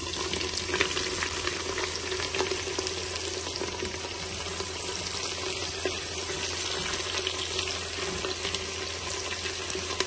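Sliced onions sizzling steadily in hot mustard oil in a pressure cooker, with light scrapes and taps of a wooden spatula as they are stirred.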